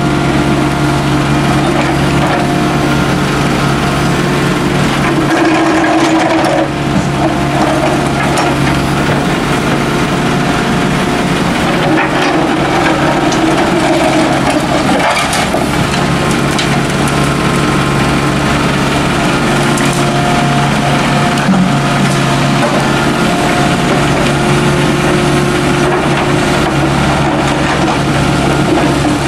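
Volvo mini excavator's diesel engine running steadily under working load while its bucket digs and scrapes through soil and broken concrete rubble, with scattered crunches and knocks of rock against steel.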